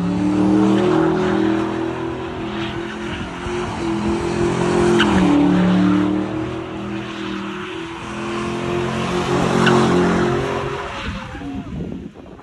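Ford Mustang spinning donuts: the engine is held at high revs with the rear tyres spinning and screeching on the pavement. The engine note wavers up and down and drops away about eleven seconds in.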